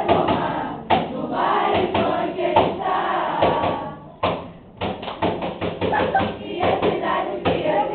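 A group of voices singing together over rhythmic percussive thumps and taps, several a second, with a brief lull about four seconds in.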